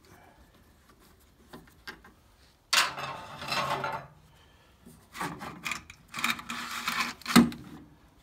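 Air filter being pulled from a Bobcat 763's air cleaner canister: the cover and outer filter element scrape and rub against the housing in two stretches, the second ending in a sharp knock.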